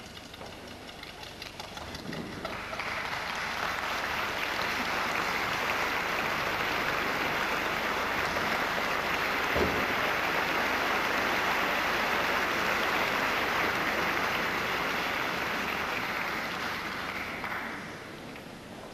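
Audience applauding in a theatre, building up a couple of seconds in, holding steady, then dying away near the end.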